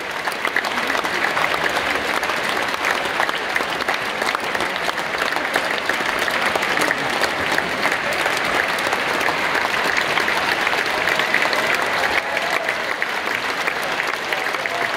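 Large theatre audience applauding, dense steady clapping that keeps up without a break.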